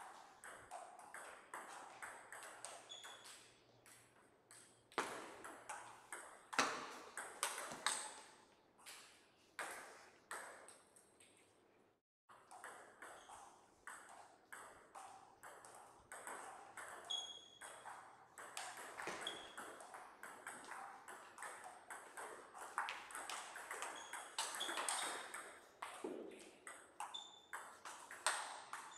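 Table tennis rallies: a celluloid-type ball clicking off the table and the rubber-faced bats in quick, irregular runs, with pauses between points. The audio drops out briefly near the middle.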